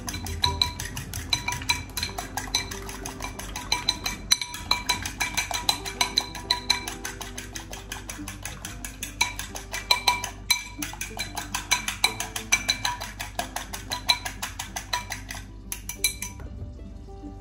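A fork beating eggs in a ceramic bowl: quick, rhythmic clinks of the tines against the bowl, several a second, stopping about 16 seconds in. Background music plays underneath.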